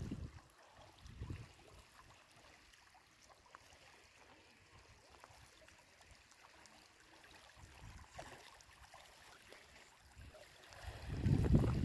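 Wind buffeting the microphone in low rumbling gusts, briefly at the start and about a second in, then a longer, louder gust near the end. Between the gusts, faint lapping of small waves on a stony lake shore.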